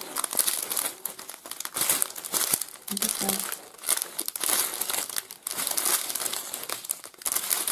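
Thin plastic zip-lock bags of diamond painting drills crinkling as they are handled and turned over, in an irregular run of rustles.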